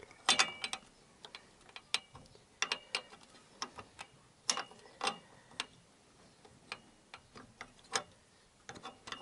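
Irregular sharp clicks and taps of metal fittings being handled and levered as a bolt is worked into its mounting on a Yamaha XJ900S's engine frame, beside the exhaust. A few of the louder knocks ring briefly.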